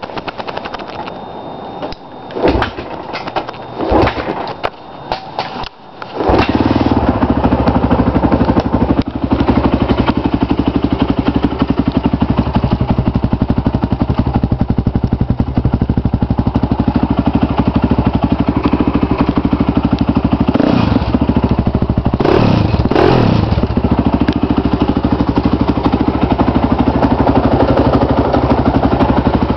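Honda TRX450R quad's single-cylinder four-stroke engine through a Yoshimura exhaust: a few seconds of irregular knocks and sputters, then the engine starts about six seconds in and idles steadily. Two quick throttle blips near the three-quarter mark.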